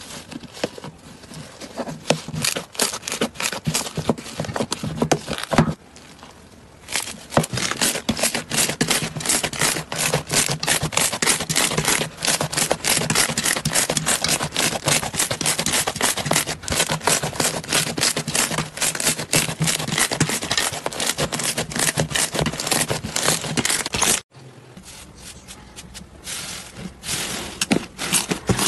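Slime being pressed and squished by hand, making a dense run of sharp crackling clicks and pops. The sound cuts abruptly to a different clip about six seconds in and again near the end.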